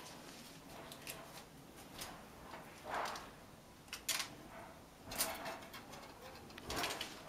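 Kittens' claws scraping and gripping on the bark of a wooden cat tree as they climb, in scattered scrapes and knocks about a second apart.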